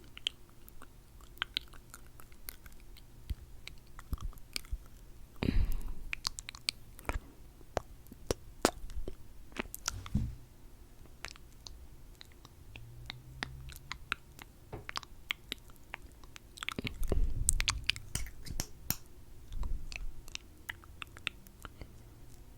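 Mouth sounds: scattered sticky clicks and smacks of lips coated in lip gloss, with a louder dull thump twice, about five and seventeen seconds in.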